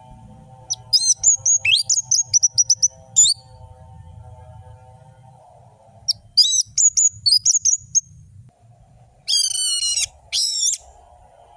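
Orange-headed thrush (anis merah) singing: two quick runs of sharp, high whistled and chattering notes, then near the end two loud, harsh buzzy notes. A faint steady drone runs underneath.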